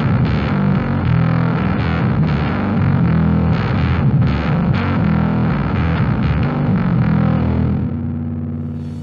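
Bass guitar played through a Fender Blender fuzz pedal: a distorted fuzz bass line, ending on a held note that fades out near the end.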